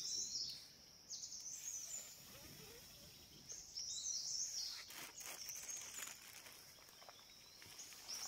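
A bird singing short, high warbling phrases every second or two, over quiet outdoor background, with a few faint knocks in the second half.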